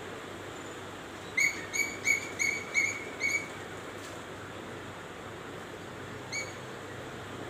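Asian koel calling: a quick run of six short high notes, about three a second, then one more single note near the end, over a steady background hiss.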